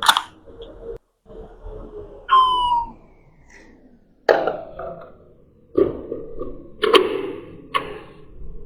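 Sharp clacks and knocks from a gas-blowback airsoft M4 replica being reloaded by hand: magazine handling, the magazine seating in the rifle, and the bolt catch released to chamber a round. There are about five separate knocks, with a short falling squeak about two and a half seconds in.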